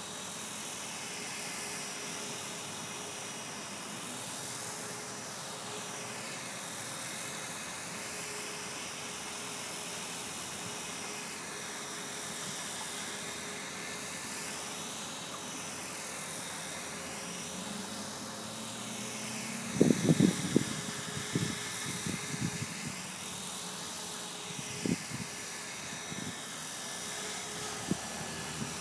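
Blade 450 electric RC helicopter in flight: the steady whine of its electric motor and gears with the whir of the rotors. The tone wavers slowly as the helicopter moves. About twenty seconds in comes a run of loud, short thumps over several seconds, with a last one near the end.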